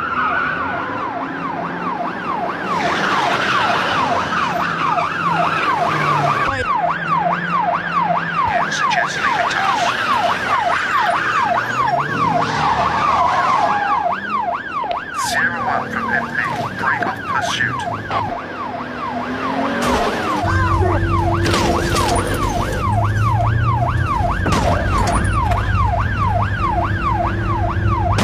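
Police car siren on a fast yelp, its pitch sweeping up and down a couple of times a second, over the noise of cars driving at speed during a chase. About two-thirds of the way in, a louder low drone joins underneath.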